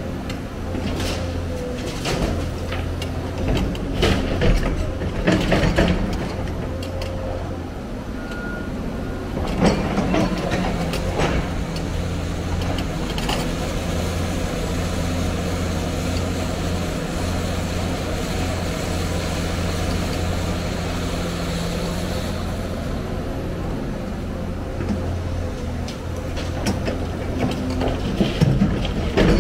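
Hyundai 290LC crawler excavator's diesel engine running steadily under load through a full loading cycle. Concrete and brick rubble clatters into the dump truck's steel bed in the first few seconds, with more knocks about ten seconds in as the bucket digs into the rubble pile and again near the end as the loaded bucket returns to the truck; a steady tone sits over the engine through the middle.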